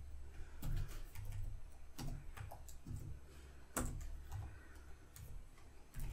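Keystrokes on a computer keyboard: a handful of separate clicks, slow and uneven, a second or so apart, over a low steady hum.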